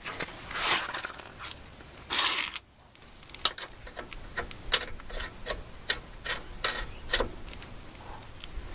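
Metallic clicking and rattling of lug nuts being handled and threaded onto the wheel studs. There are two short rushes of noise in the first three seconds, then a run of irregular sharp clicks.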